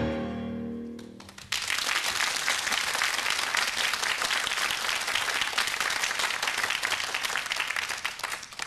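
A tango ensemble's final held chord fades out, then a studio audience applauds for about seven seconds, tapering off near the end.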